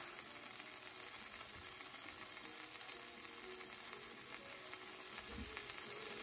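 Chopped roast pork and sliced ham sizzling quietly on the hot griddle plate of a Ninja Foodi XL Pro Grill & Griddle set to 350°F. It is a steady, faint frying hiss with light crackles as liquid on the plate cooks off.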